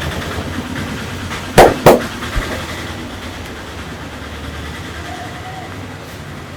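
Steady street traffic noise, broken by two loud sharp smacks about a third of a second apart, then a softer knock half a second later.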